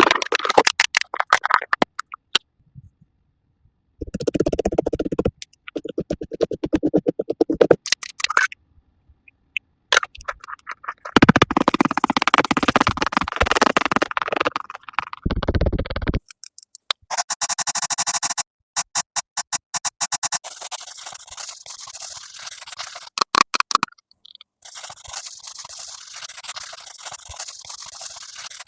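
A string of short edited ASMR cosmetic sound effects with brief silences between them: rapid clicking and tapping in the first half, then soft hissy scratching and brushing sounds.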